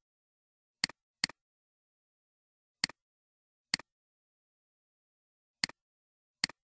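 Computer mouse button clicks, six of them at irregular intervals, each a quick press-and-release double tick, with dead silence between them.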